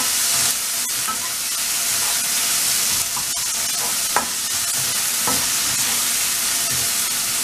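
Chopped tomato and onion sizzling in oil in a wok, with a spatula stirring and scraping through them now and then; the tomato is being cooked down until soft.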